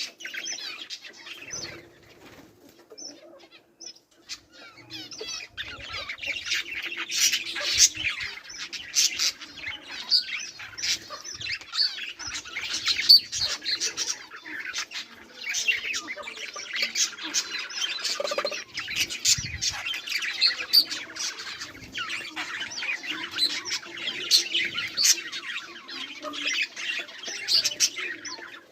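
Budgerigars chirping and chattering in a rapid, continuous stream, thinner and quieter for a few seconds near the start.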